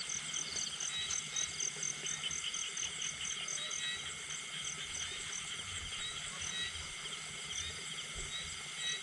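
Chorus of crickets and other insects: steady high-pitched trilling, with one voice pulsing evenly several times a second over a constant thin whine.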